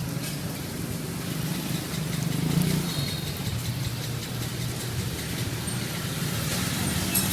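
An engine idling steadily, with a few faint clicks.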